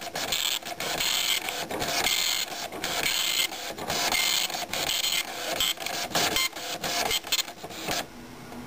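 Citizen GSX-190 9-pin dot matrix printer printing out its menu: the print head rattles across the paper in passes, with short breaks between lines, and stops about eight seconds in.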